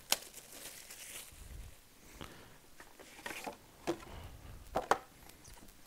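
Hard cardboard trading-card boxes handled and set on a table: a handful of light, spaced-out knocks and taps, with faint rustling in the first second or so.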